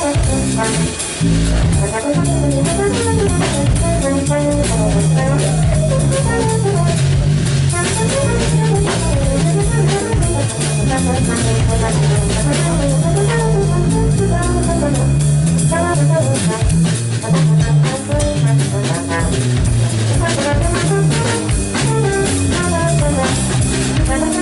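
Live jazz trio jamming: trombone, drum kit and keytar playing together.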